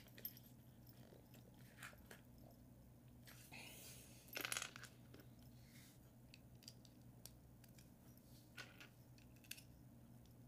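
Faint clicks of plastic Lego bricks being handled and pressed together, with a brief louder rustle about four and a half seconds in, over a faint steady hum.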